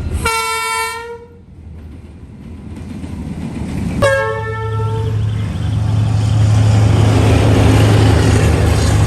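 D19E diesel locomotive horn sounding two short blasts, about four seconds apart, each a single steady chord lasting about a second. After the second blast the locomotive's deep steady engine drone swells up and stays loud to the end.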